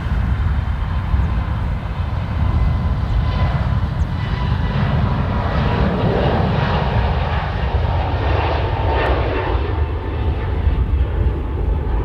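Airbus A320neo jet engines at take-off power, a steady deep rumble with a faint whine, and a rushing roar that swells in the middle and dies away near the end as the airliner climbs out.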